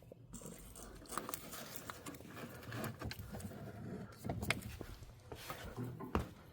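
Faint scattered clicks and rustling, like something being handled and plugged in.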